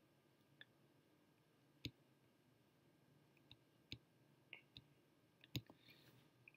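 Faint, scattered clicks of a computer pointer, about eight in all with a couple in quick pairs, as folders are opened one after another and a file is selected.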